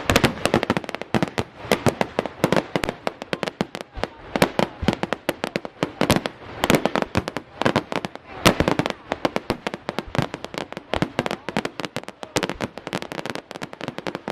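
Fireworks display going off in rapid succession: a dense, continuous volley of sharp bangs and crackles, several a second, with especially loud reports about a third of the way in and just past halfway.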